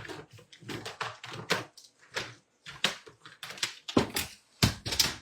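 Rapid clicks, taps and rustles of craft supplies being handled and set down on a desk, with the loudest knocks about four seconds in and near the end.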